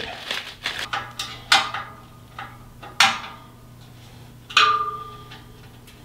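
Metal cable management hook and its hardware clinking against a steel server rack frame while being fitted. There are a few sharp clinks about a second and a half apart with lighter ticks between them, and the last clink, near the end, rings on briefly with a clear tone.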